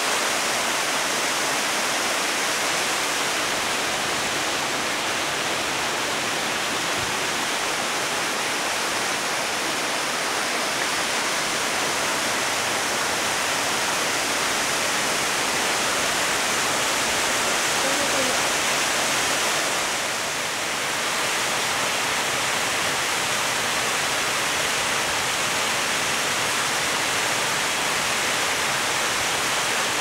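Partly frozen waterfall: falling water rushing steadily into the pool below its ice columns.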